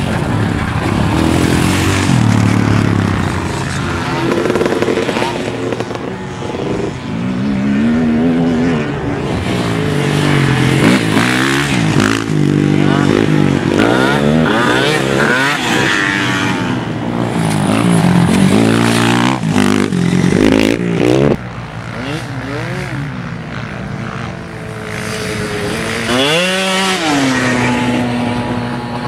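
Sport quad bike (ATV) engines revving hard as the quads ride over a dirt-track jump. Their pitch repeatedly climbs, breaks at each gear change and drops again. Near the end one engine revs up, then holds a steady note.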